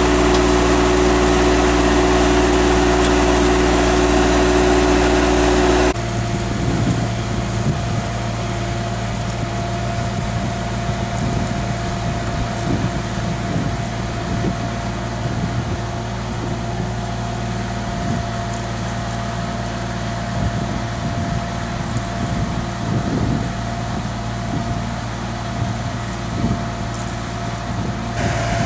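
Truxor DM 5000 amphibious carrier's engine running steadily. About six seconds in the sound cuts to the machine at work in the water with the spreader, the engine running more roughly with a steady high whine over it.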